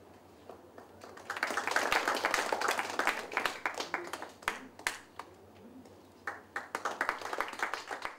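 Audience applauding in two rounds: clapping builds about a second in and dies away around the middle, then a second, lighter round of clapping near the end.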